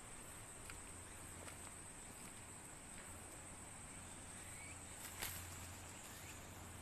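Quiet outdoor ambience: a steady high-pitched insect drone, with a few faint ticks and one sharp click about five seconds in.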